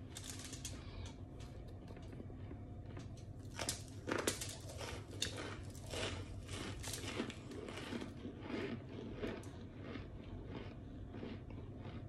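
Crunching and chewing of microwaved powdery white chunks, baked crisp, in a run of short crackly bites and crunches that is busiest from a few seconds in until near the end.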